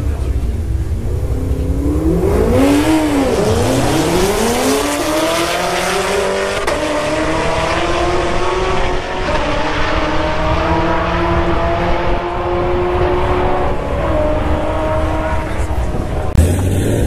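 A drag-race car's engine revs up and back down once, then launches and pulls hard, its pitch climbing for about ten seconds with a few small drops. Near the end a different steady low engine hum takes over.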